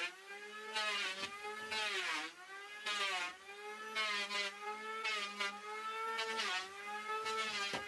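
Electric power tool motor running with a steady whir, its pitch sagging under load twice, with a rougher burst of noise about once a second.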